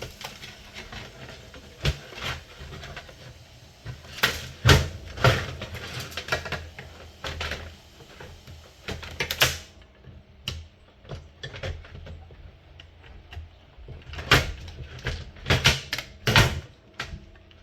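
Irregular clicks, taps and knocks of a Timex alarm clock's plastic casing and circuit boards being handled and pulled apart, with louder clusters about four seconds in and again near the end.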